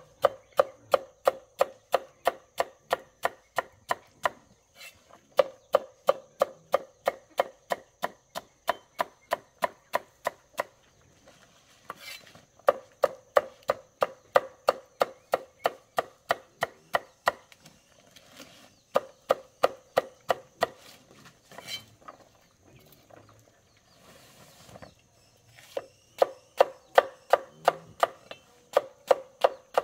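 A knife chopping rapidly on a wooden board, about three to four strokes a second, in runs broken by short pauses.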